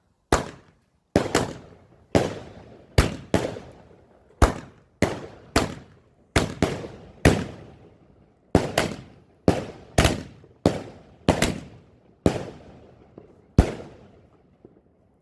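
Fireworks going off: a quick, uneven series of about twenty sharp bangs, each dying away in a short echo, until they stop a little before the end.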